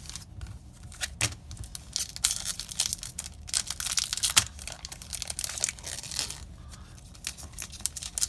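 A Magic: The Gathering booster pack's foil wrapper being torn open and crinkled by hand, a run of sharp crackles that is thickest in the middle.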